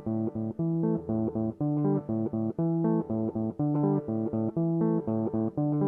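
Instrumental music: a guitar picking short, separate notes over a bass line at a steady pulse, several notes a second.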